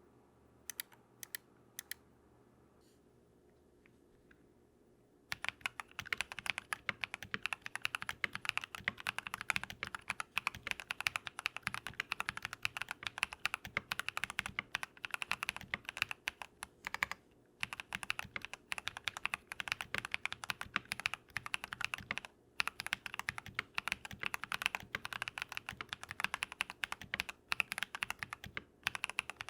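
Typing on a modded Keychron V1 mechanical keyboard with lubed Drop + Invyr Holy Panda tactile switches. A few single keystrokes in the first couple of seconds, then fast continuous typing from about five seconds in, with a few short pauses.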